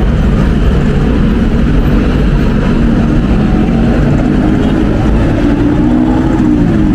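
Loud steady low rumble of city background noise, with a faint engine-like tone rising and falling near the end.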